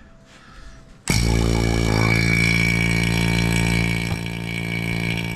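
Vacuum pump for a set of vacuum clamps switched on about a second in, then running with a steady motor hum and a high whine.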